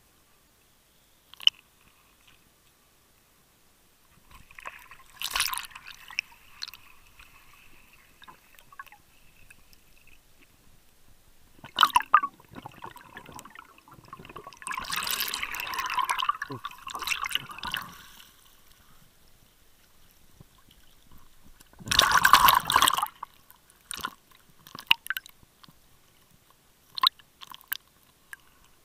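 Water sounds picked up by a camera held underwater: irregular bursts of bubbling and sloshing, four in all, the loudest late on, with scattered small clicks in between.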